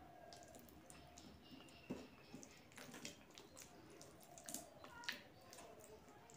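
Faint wet clicks and squishes of eating by hand: fingers mixing and pressing soft boiled rice with mashed vegetables on a metal plate, with a few sharper clicks about two seconds in and again near the five-second mark.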